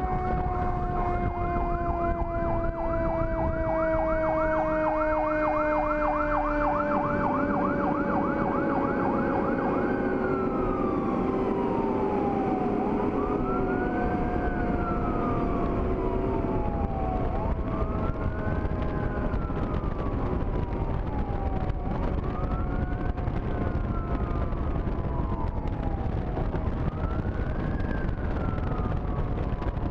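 Fire engine's siren sounding while the truck drives: a fast yelp for about the first ten seconds, then a slow wail rising and falling about every four seconds. Under it, a lower tone slides slowly down through the first few seconds, with steady road and wind noise throughout.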